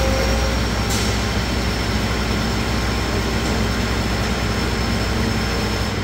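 John Deere 9770 STS combine's diesel engine idling: a steady low rumble and hiss with a thin, steady high whine over it. A short click about a second in.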